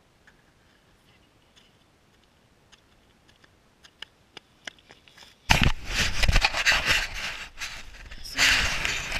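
Footsteps approaching, a few sharp steps growing louder over about five seconds, then loud scraping and crunching handling noise right at the microphone as the RC car's GoPro is grabbed and moved.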